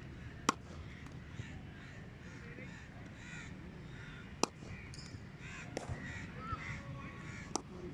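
Three sharp cracks of a cricket bat hitting the ball, the first half a second in and the others about four and three seconds later, over birds calling repeatedly.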